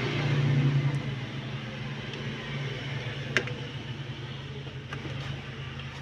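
Steady low mechanical hum, a little louder in the first second. Over it come a few faint clicks and one sharper click about halfway through, from pliers twisting and bending spliced wires.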